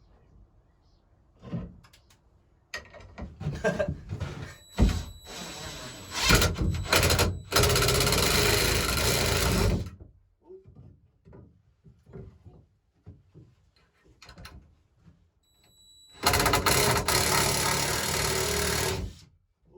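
A power drill or driver running in two long bursts of about three seconds each, driving screws, with a steady high whine as each starts. Knocks and handling clatter come before the first burst.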